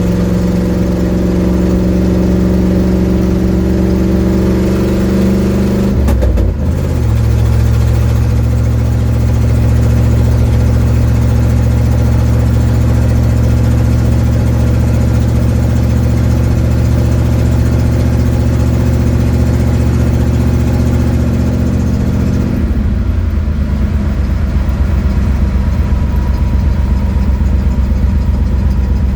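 1972 Ford Mustang engine running with an exhaust leak while the car is driven, heard from inside the cabin. The engine note climbs slightly, then breaks and drops to a lower pitch about six seconds in. It holds steady for a long stretch and changes again near the end.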